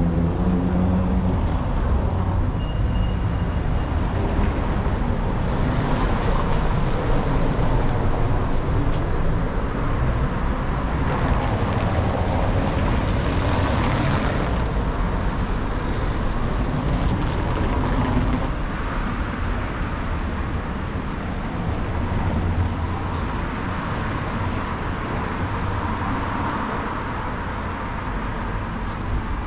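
City street traffic: motor vehicles running and passing. An engine hum is heard at the start, and a few vehicles swell past along the way.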